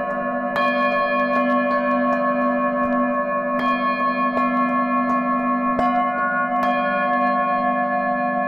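Himalayan singing bowls struck one after another with mallets. Each sharp strike every second or so adds a new ringing tone over a dense layered hum of bowls still sounding, and the tones waver slowly as they beat against each other.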